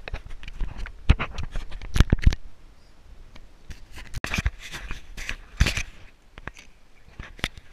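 Handling noise from an action camera being gripped and moved by hand: irregular clicks, knocks and scrapes of fingers on the camera housing, with a cluster of loud knocks about two seconds in.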